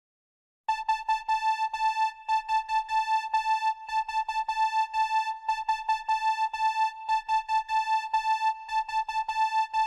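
Electronic synthesizer tone on one high note, repeated over and over in fast, uneven on-off beeps, starting about a second in: an alarm-style beeping figure.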